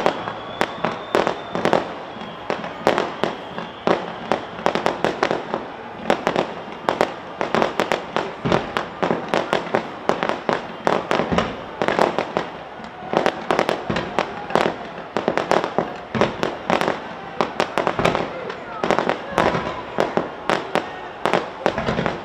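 Fireworks display: a continuous barrage of sharp bangs and crackles, several a second, with a few brief lulls.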